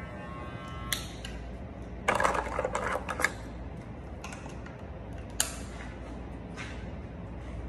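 Electric hair clipper buzzing, switched off with a click about a second in. Then comes a burst of plastic rattling and a few sharp clicks as its guard comb is handled and clipped on.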